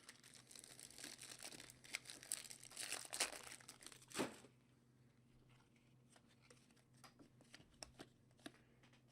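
Plastic wrapper of a trading-card pack being torn open and crinkled for about four seconds, loudest near the end, followed by a few faint light ticks as the cards are handled.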